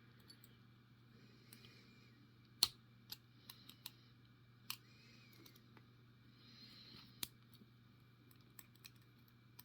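Scattered small metal clicks of circlip pliers working at the big circlip on a Ruko lock cylinder, the sharpest about two and a half seconds in, over a faint low steady hum.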